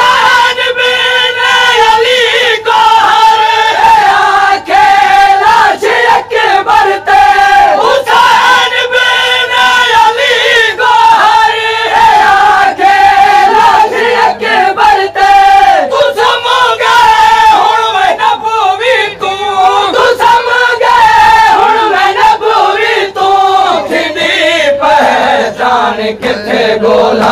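A crowd of men chanting a Siraiki noha, a Shia lament, together in loud unison, with long held notes that rise and fall.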